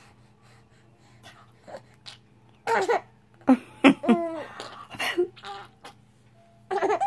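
Six-month-old baby giggling in short, breathy bursts with pitched squeals, starting about three seconds in and again near the end.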